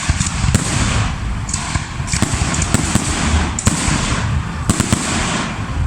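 Fireworks display: sharp bangs roughly every second over continuous crackling and low rumbling booms.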